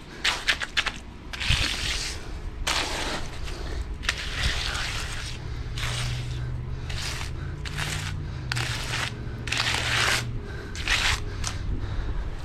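Repeated scraping strokes of a tool through wet concrete, each a short rough rasp, with an engine running steadily underneath from about four seconds in.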